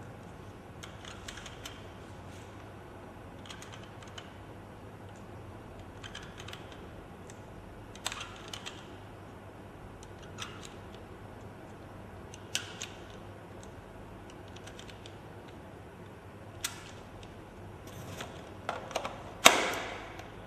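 Handling clicks and knocks from an M4-style airsoft rifle and its box: scattered short clicks a few seconds apart, with the loudest knock near the end.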